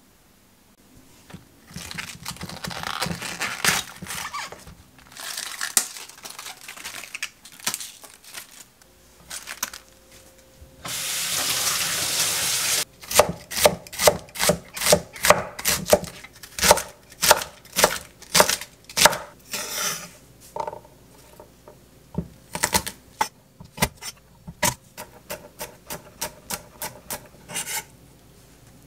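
Chef's knife chopping on an end-grain wooden cutting board, about two to three even knocks a second, as cabbage is sliced into thin strips and then garlic is minced. Before the chopping there is rustling handling, and then a steady hiss lasting about two seconds.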